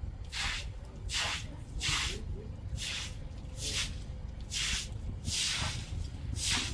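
Straw broom sweeping wet concrete: eight swishing strokes, just under one a second.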